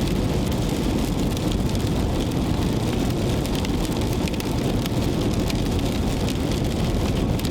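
Car driving in rain, heard from inside the cabin: a steady road rumble with many small ticks of raindrops hitting the car.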